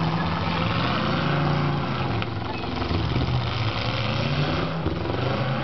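Demolition derby car engines running under load as the cars push and spin their wheels in the mud, a steady engine hum whose pitch drops slightly about two seconds in.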